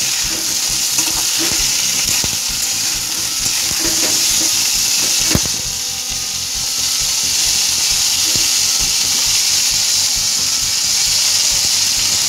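Pointed gourd (potol) pieces frying in hot mustard oil with a steady sizzle, while a metal spatula stirs them, scraping and knocking against the pan; one sharper knock about five seconds in.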